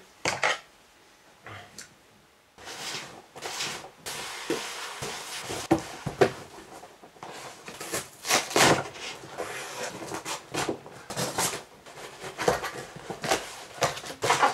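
Taped cardboard box being opened by hand: packing tape tearing off and cardboard flaps scraping and rustling in an irregular run of sharp noises, starting after a couple of seconds of near silence.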